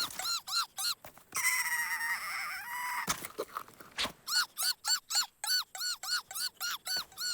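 Cartoon squeak sound effects: a quick run of short squeaks, each rising and falling in pitch, about three to four a second. About a second in they give way to one longer wavering squeal, then a couple of clicks, and the run of squeaks picks up again about four seconds in.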